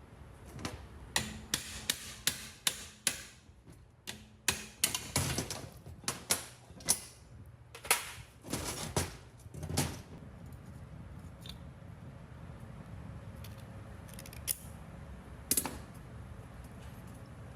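Hand work on the metal parts of a hand pallet truck: a quick, irregular run of sharp metallic taps and clinks for about ten seconds, then only a few isolated clicks.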